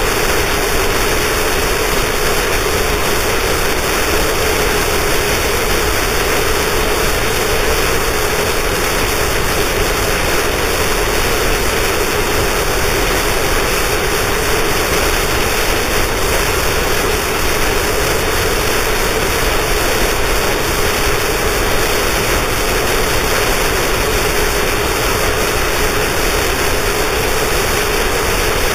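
Harsh noise wall from an underground noise cassette: a loud, dense, unchanging mass of static across all pitches, with a steady droning band in the lower middle.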